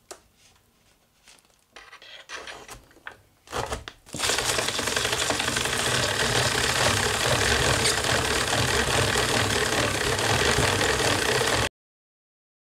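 Hand-cranked Cabbage-kun commercial cabbage slicer: a few light clicks and rustles as a cabbage is fitted to the pusher. From about four seconds in, a steady, dense crunching as the rotating blades shred the cabbage at speed. It cuts off abruptly near the end.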